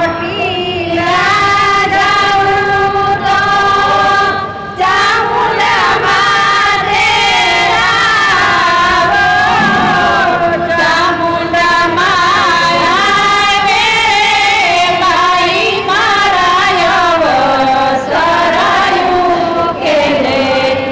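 A women's chorus singing a traditional Gujarati wedding song (lagna geet), with long held notes in phrases broken by brief pauses.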